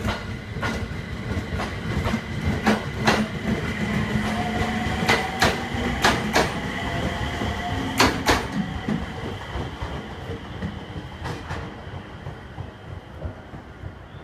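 Aoimori Railway 701 series electric train pulling out and moving off. Its wheels click sharply over rail joints and points, several times in quick pairs, and a faint motor whine rises in pitch as it speeds up. The rumble fades over the last few seconds as the train draws away.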